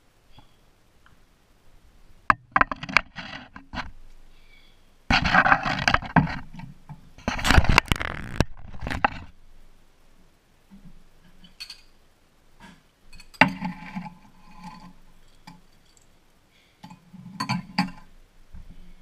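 Kitchen handling noises: a few sharp clicks and knocks, loud scraping and rustling between about 5 and 9 seconds, then more knocks and clinks as a bowl with a metal spoon and a drinking glass sit on a hard counter.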